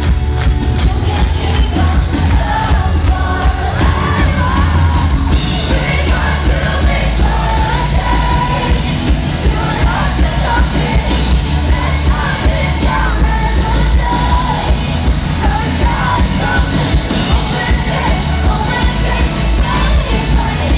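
Live pop-rock band playing loud, with a female lead vocal over electric guitar, keyboard and drums and a heavy, booming bass end, recorded from within the audience.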